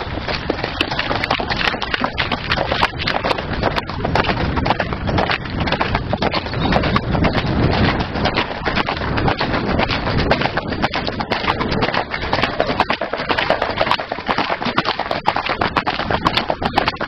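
Horse hooves clip-clopping on asphalt in a quick, dense run of hoofbeats, over a steady rushing noise.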